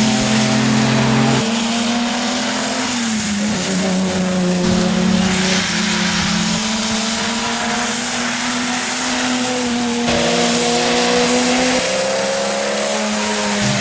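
Rally cars' engines running through a hairpin one after another, their notes holding and then stepping up or down as they rev and change gear, over a steady hiss of tyres and spray on the wet road.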